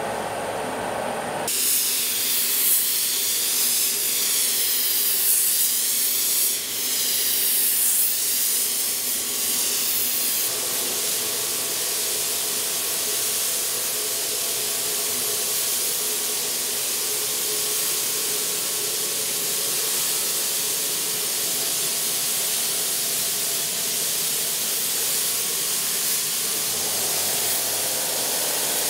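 Compressed-air spray gun hissing steadily as it sprays clear lacquer over car paintwork. The hiss starts about a second and a half in and wavers up and down in waves for the first ten seconds or so.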